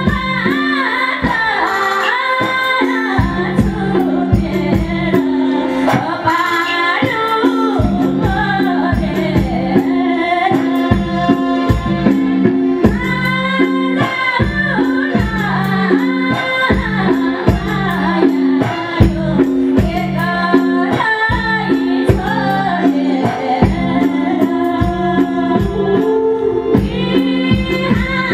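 A woman singing a Nepali folk song in an old folk melody into a microphone, amplified through a PA, over live accompaniment with sustained held chords and a steady percussion beat.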